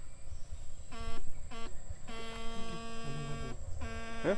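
Electrofishing stunner buzzing with a steady electric hum, switched on and off in four spells: two short ones about a second in, a longer one of over a second, and another near the end. A quick rising sweep comes right at the end.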